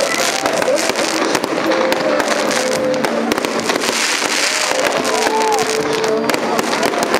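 Fireworks display: a dense, continuous crackling and popping of aerial shells bursting into crackling stars.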